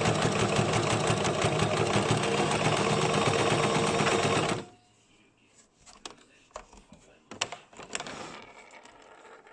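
Basic electric sewing machine stitching a straight seam at a steady speed, then stopping about halfway through. A few faint clicks and rustles follow.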